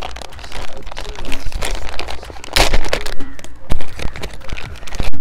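Clear plastic packaging bag crinkling and rustling as it is handled and pulled open, in irregular crackles with one loud rustle about two and a half seconds in.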